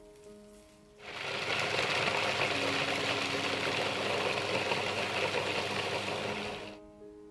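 Magimix food processor running for about six seconds, its blade grinding walnuts to a fine crumb, with a low motor hum under the chopping noise; it starts about a second in and cuts off near the end. Soft background music plays throughout.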